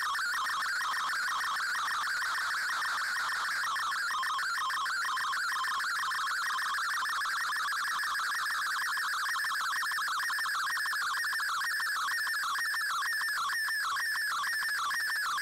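Shortwave receiver audio of an MFSK picture transmission in the Shortwave Radiogram broadcast: one high, continuously warbling tone that wavers quickly in pitch as each line of the image is sent, steady in level throughout.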